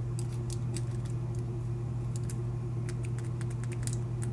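Light, irregular metallic clicks and ticks from the small parts of a disassembled lock core, with key pins dropping out as the plug is worked loose. A steady low hum runs underneath.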